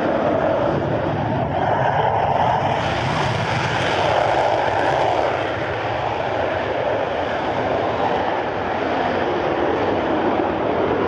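Eurofighter Typhoon's twin EJ200 turbofan jet engines at high power during takeoff: loud, steady jet noise that swells slightly and then holds.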